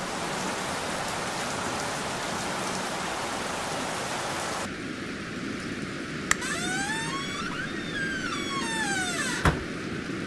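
Steady hiss of heavy rain. About halfway through the sound thins and a sweeping, phasing tone rises and falls over it, opening and closing with sharp clicks, the second click louder.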